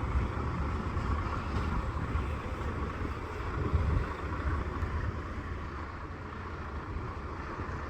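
Steady low rumble of road traffic with wind noise, swelling briefly about four seconds in as a vehicle passes, then easing off.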